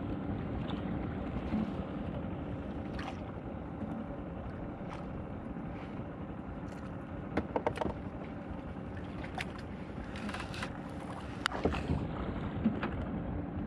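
Steady low ambience of wind and water around a small fishing boat at sea, with a faint steady hum under it and a few light clicks and knocks from handling the rod and boat, most of them about eight and eleven seconds in.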